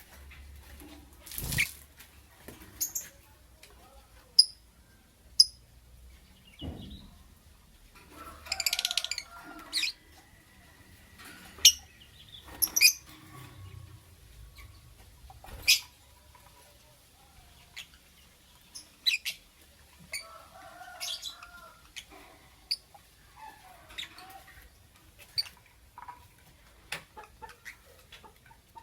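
Lovebird making scattered short, sharp chirps with pauses between them, and two longer calls, one about nine seconds in and one around twenty-one seconds.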